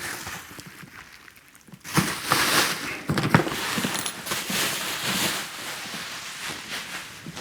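Cardboard guitar box and packing being handled and pulled away: rustling and scraping with a few short knocks, starting about two seconds in after a quieter moment.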